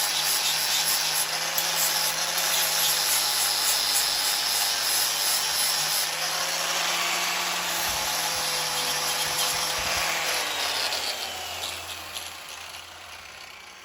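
An electric power tool grinding the steel of an old spanner with a steady rasping hum. About ten seconds in, the tool is switched off and its motor winds down, falling in pitch and fading.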